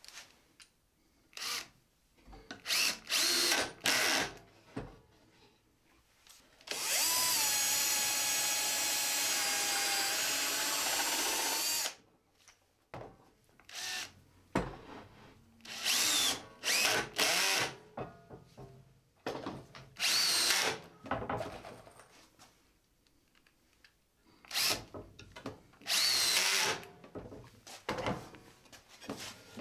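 Cordless drill/driver driving screws into a plywood box: the motor runs in short trigger bursts, with one steady run of about five seconds about seven seconds in.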